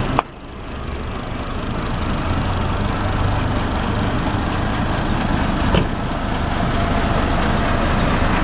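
Coach engines running at low revs: a steady low drone under street noise, with a single sharp click about six seconds in.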